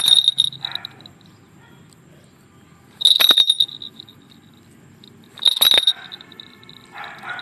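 A small metal bell jingling in three short bursts: at the start, about three seconds in, and about five and a half seconds in.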